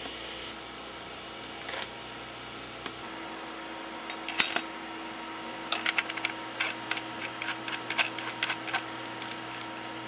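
Light metallic clicks and rattles from fingers handling a knurled knob on a Crosman 2240 air pistol: one sharp click about four seconds in, then a quick, irregular run of small clicks from about six to nine seconds, over a steady low hum.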